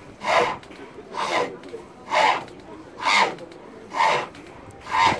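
A turning tool cutting a wooden workpiece on a treadle-driven spring pole lathe: a rasping cut on each down-stroke of the treadle, six times at about one a second, with quieter gaps as the pole springs back and the workpiece spins in reverse.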